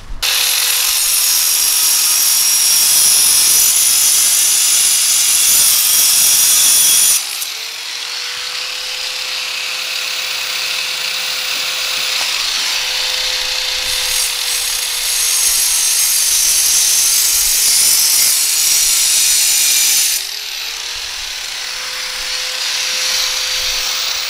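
Corded power tool cutting through the steel wire of a cattle panel. Loud, harsh cutting noise for about the first seven seconds, then the motor runs with a steady whine under lighter cutting, and the loud cutting returns about twenty seconds in.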